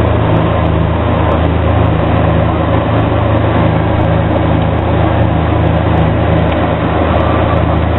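Four Pratt & Whitney Canada PT6A turboprop engines and propellers of a de Havilland Canada Dash 7 running steadily in flight, heard inside the cockpit: an even low hum of propeller tones under a loud rushing noise.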